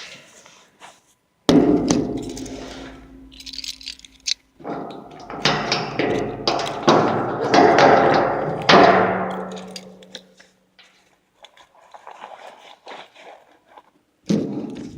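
Metal clangs and knocks at a heating-oil tank, a string of hits between about one and a half and ten seconds in, some leaving a short ringing tone, as the tank is opened to check the fuel level.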